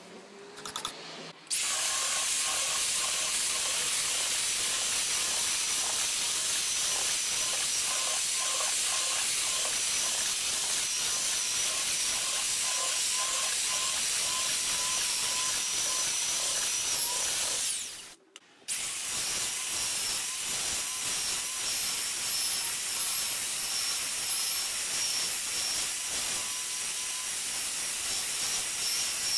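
An electric power tool running steadily with a hiss and a high whine. It starts suddenly just after the start, winds down and stops for a moment about two thirds of the way through, then starts again.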